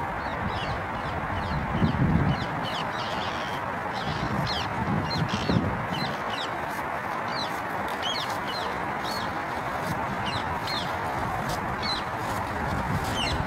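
Birds calling: many short, high chirps repeating throughout over a steady background hiss. Wind buffets the microphone about two seconds in and again around five to six seconds.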